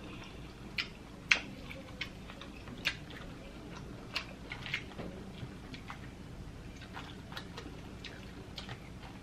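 Fingers rummaging through a bowl of boiled crawfish, the hard shells clicking and crackling against each other in irregular sharp clicks, the loudest about a second and a half in.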